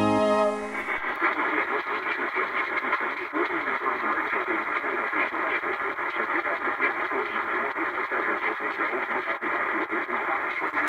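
Radio static: a steady hiss with a faint flutter, heard through a radio's narrow band.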